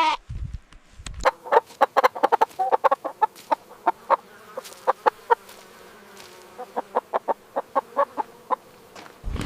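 Chicken clucking: a quick, irregular run of short clucks.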